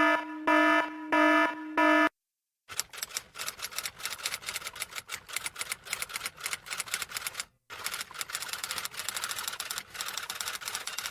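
Four short electronic beeps at the same pitch. After a short pause comes a fast, continuous clatter of typing keystrokes, many clicks a second, broken once by a brief gap.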